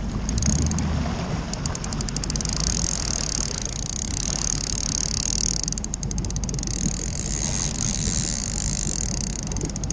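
A boat's 350 inboard engine running steadily at low speed, with water rushing along the hull.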